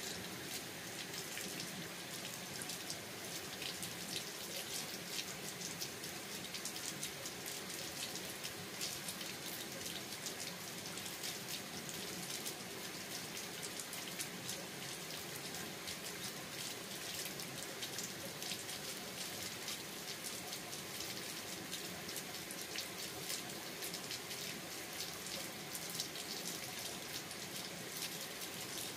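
Steady rain falling, a continuous hiss made of many small drop impacts.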